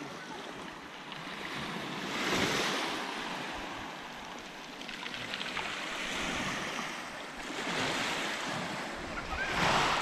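Small, calm-sea waves washing in and draining back over a pebble beach, the surf swelling about every two to three seconds.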